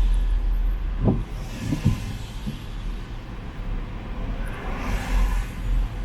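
City street traffic: cars pass by one after another over a steady low rumble, with a swell of tyre and engine noise about a second in and again near the end.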